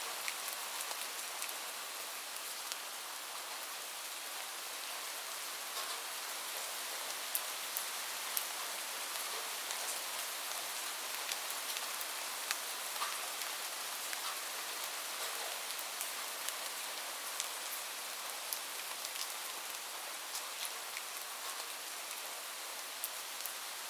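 Light rain falling steadily on a surface, a continuous soft hiss with many scattered individual drop ticks.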